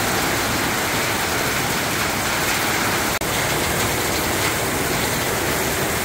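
Heavy tropical downpour: a steady, even hiss of rain pouring onto the street and the awnings overhead.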